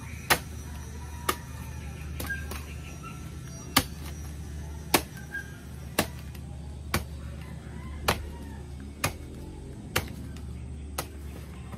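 A bolo knife chopping the thick base of a coconut frond stalk for firewood. There are about ten sharp chops, roughly one a second.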